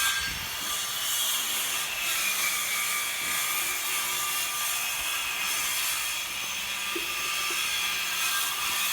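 A saw cutting wood, running steadily with a dense high hiss.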